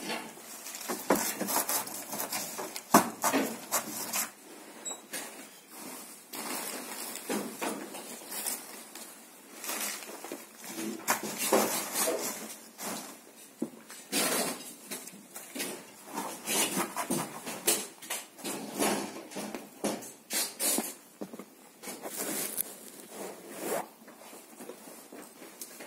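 Flower stems and leaves rustling, crackling and knocking as they are handled and pushed into a floral arrangement, in irregular bursts of handling noise, with a sharper knock about three seconds in.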